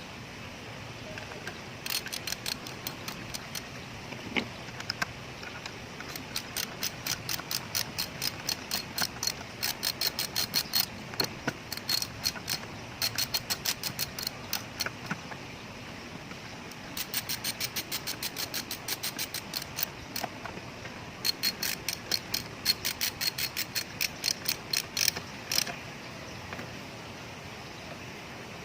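Ratchet wrench clicking in several runs of quick, evenly spaced clicks as bolts are turned, with short pauses between runs.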